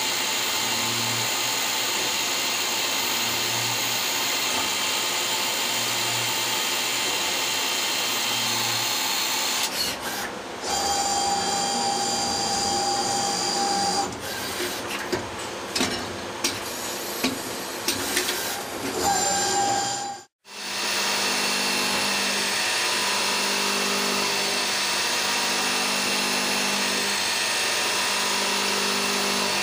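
Citizen Cincom M32 VIII CNC sliding-headstock lathe cutting brass bar, a steady dense machining noise. In the middle stretch, as the workpiece unloader works, a steady whine is heard with a series of sharp clicks. After a sudden cut-off, the steady cutting noise of milling returns.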